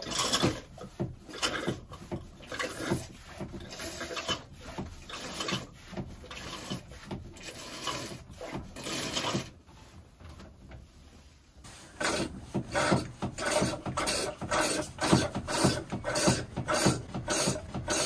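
A hand pump worked in steady rhythmic strokes, drawing water out of a yacht's flooded battery well through hose into a plastic jug, with a rasping rub on each stroke. At first the strokes come about twice a second. Near the end they are faster and louder, about three a second.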